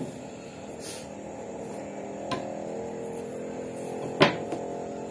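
Motorcycle engine running steadily with a low, even hum, swelling slightly midway. A light click and then a sharp knock about four seconds in, from hands handling a cardboard box.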